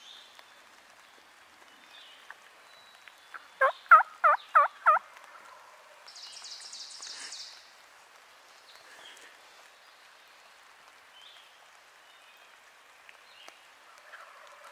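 A wild turkey gobbling once, about four seconds in: a loud, fast rattle of about five quick notes, which sounds like a longbeard (mature tom). A couple of seconds later a small bird gives a short, high trill.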